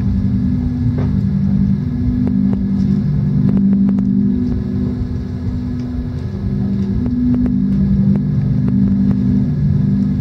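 A loud, steady low drone: sustained low tones that shift in pitch every second or so over a deep rumble, with a few faint clicks now and then.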